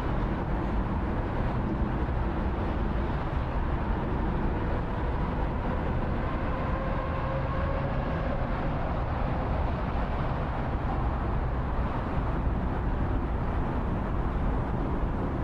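Steady outdoor ambience: an even, unbroken wash of noise with a faint hum running through it.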